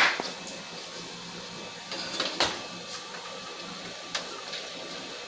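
Metal clicks and scrapes from a screwdriver and hands working inside an open desktop computer case: a few sharp clicks, the loudest about two and a half seconds in.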